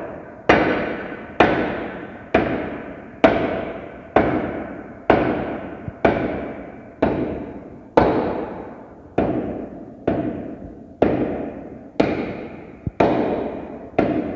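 Hammer blows tapping a frozen cylinder sleeve, chilled so it shrinks for its tight fit, down into the bore of a six-cylinder diesel engine block. The blows are steady, about one a second, and each rings briefly and dies away.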